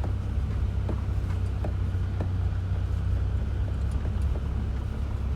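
UAZ Patriot driving across a rough field, heard from inside the cabin: a steady low rumble with a few light knocks and rattles scattered through it.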